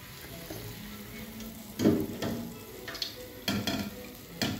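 Pastry dough frying in hot oil with a steady sizzle, and a few sharp knocks of a metal skimmer, the loudest about two seconds in.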